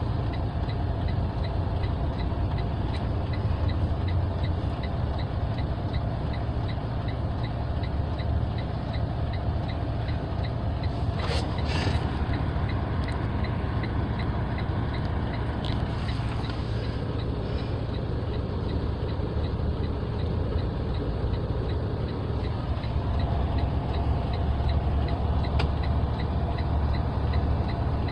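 Semi-truck diesel engine idling steadily, heard from inside the cab as a low rumble, with a faint regular ticking over it and a brief clatter about eleven seconds in.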